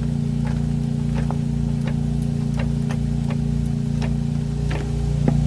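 A steady low machine hum with light clicks, about two or three a second.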